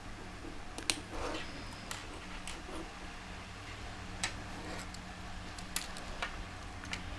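A few faint, sharp clicks of plastic Lego pieces being handled and pressed together, over a steady low hum.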